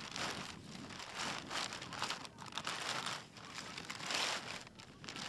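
Hang glider sail fabric crinkling and rustling in irregular bursts as it is handled and unfolded.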